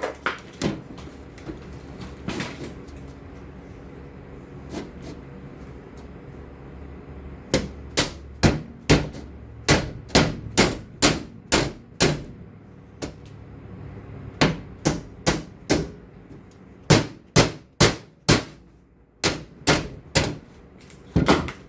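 Hammer blows on metal strips laid over the edge of a steel welding table, bending them down into an angle. A few scattered strikes at first, then from about seven seconds in a long run of sharp strikes, roughly two a second.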